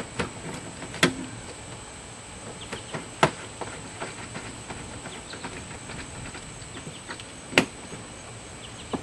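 Sharp metal clicks of a hand tool on the door latch's screws as they are tightened, four loud ones spread apart with fainter ticks between, over a steady hiss.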